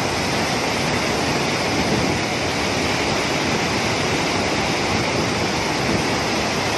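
Rupse Falls, a tall waterfall, pouring onto boulders: a steady, unbroken rush of falling water.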